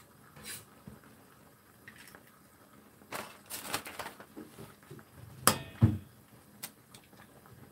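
Eggs being cracked into a pot of ramyun. There are light shell clicks and handling noises, then about five and a half seconds in an eggshell is knocked sharply twice against chopsticks. Those two knocks are the loudest sounds.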